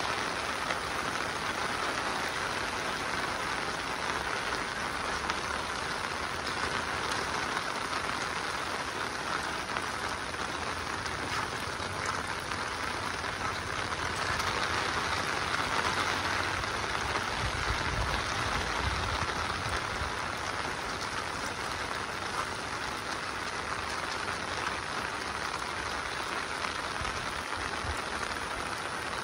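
Monsoon rain falling steadily, a dense, even hiss of drops. A low rumble comes in briefly about two-thirds of the way through.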